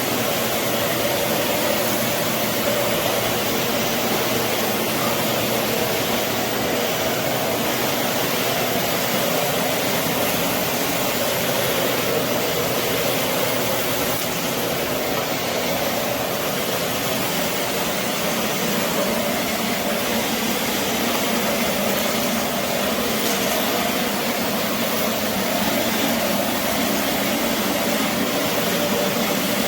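Aspiron 1600 W bagless canister vacuum cleaner running steadily.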